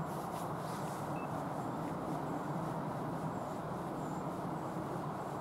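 Steady low rumble that holds at an even level, with a few faint high bird chirps over it.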